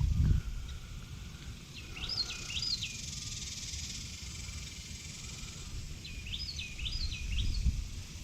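A songbird sings two short phrases a few seconds apart, each three or four quick notes that rise and fall, over outdoor ambience. Low bumps of handling or wind noise come at the start and again near the end.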